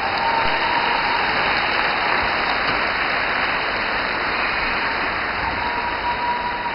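Ice-rink audience applauding steadily, welcoming a skater onto the ice, easing off slightly near the end.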